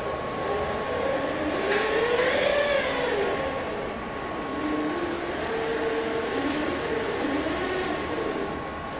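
Pioneer four-wheeled mobile robot driving, its electric drive motors whining with a pitch that rises and falls as it speeds up, slows and turns, over a steady high-pitched hum.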